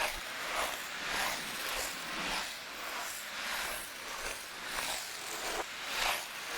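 Ice skate blades scraping and gliding on ice in repeated strokes, a little under a second apart, each a hissing scrape.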